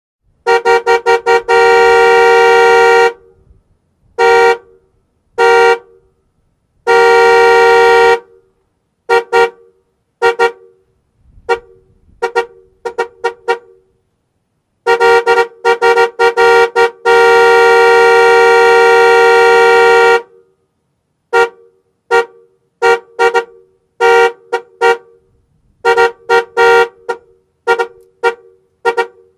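Car horn honking. Its two notes sound together, in bursts of quick short toots and several long blasts of one to three seconds each, with pauses between.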